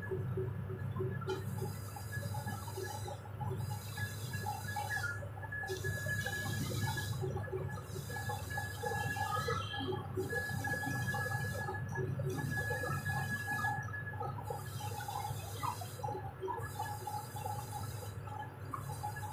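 Cylinder boring machine running: a steady low motor hum with a thin steady whine and scattered squeaks from the boring spindle.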